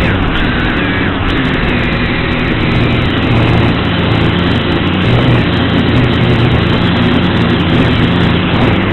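XK X250 quadcopter's motors and propellers whirring steadily, the pitch shifting up and down with the throttle.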